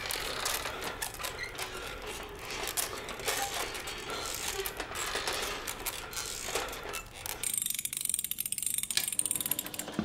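Rapid clicking and rustling of a small mechanism being handled. About three quarters in it changes to a fast, even mechanical clatter.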